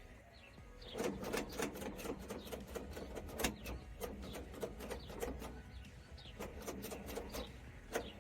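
Rapid, irregular mechanical clicking and rattling over a faint steady hum, starting about a second in.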